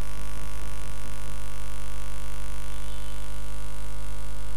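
Steady electrical mains hum, a buzz made of many even tones layered over a hiss, holding level throughout.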